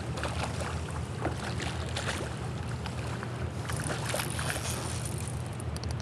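A hooked smallmouth bass thrashing and splashing at the water's surface, heard as irregular splashes and ticks over a steady low rumble.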